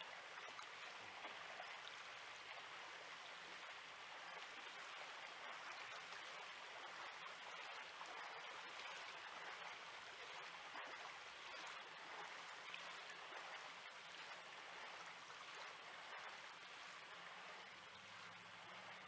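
Faint, steady outdoor background hiss with no distinct events; a faint low hum joins near the end.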